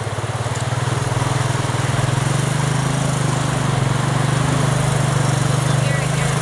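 Three-wheeler (ATC) engine running steadily as the machine is ridden through a shallow river, with water splashing; the engine note gets a little louder about two seconds in.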